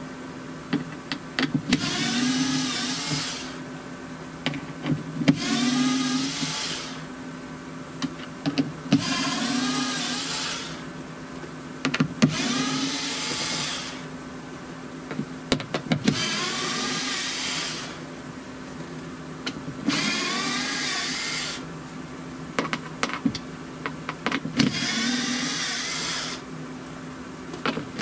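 Small electric power tool running in repeated bursts of a second or two, its pitch dipping and recovering within each burst, with clicks and knocks between the bursts.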